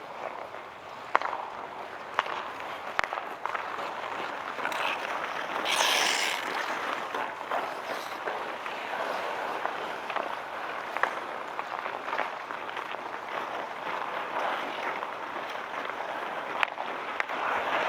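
Outdoor ice hockey play: skate blades scraping on the ice, with scattered sharp clicks of sticks and puck. A louder hissing scrape comes about six seconds in.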